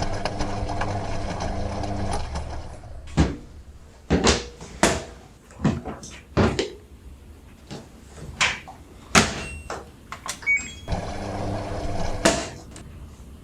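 A steady machine hum that stops after about two seconds, followed by a string of sharp knocks and clicks, then the hum again briefly near the end.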